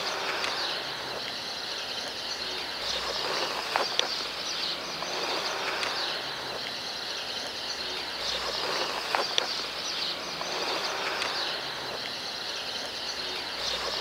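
Steady outdoor ambience noise with a few faint clicks, the same stretch repeating about every five seconds like a looped background track.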